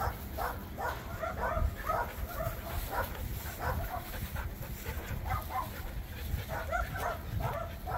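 Several Siberian huskies giving a steady run of short, excited yips and whines, two or three calls a second, as they fixate on something hidden in the flower bed.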